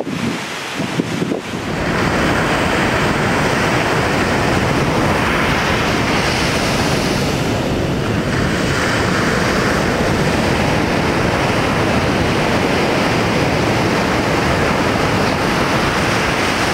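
Ocean surf breaking: a steady rush of whitewater that grows louder about a second and a half in, with wind buffeting the microphone.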